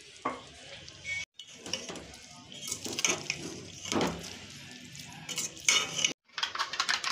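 Steel spoon scraping and clinking against a metal cooking pot as shredded vegetables and chicken are stirred, with sizzling underneath. The sound cuts out completely twice, briefly, about a second in and near the end.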